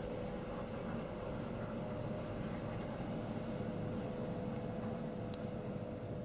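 Steady hum inside a railway sleeping-car compartment, with a faint steady tone through it. There is one brief sharp click about five seconds in.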